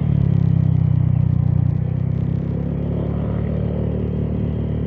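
Motor scooter engine running under way, with road noise, heard from the rider's seat. It is a little louder for the first second and a half, then eases to a steady lower hum.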